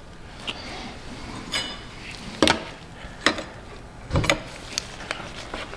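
A handful of sharp knocks and clicks, irregularly spaced, as gloved hands grip and work the fuel filter and water separator bowl on a diesel engine to crack it loose.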